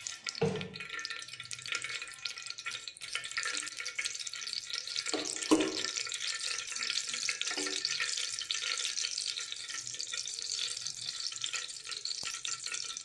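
Mustard seeds spluttering in hot oil in a pan: a dense crackle of many small pops, the seeds bursting as the tempering cooks.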